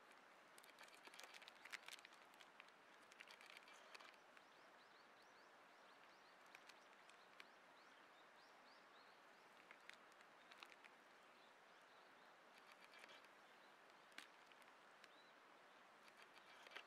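Near silence: quiet outdoor ambience with faint, high bird chirps and a few soft clicks and taps.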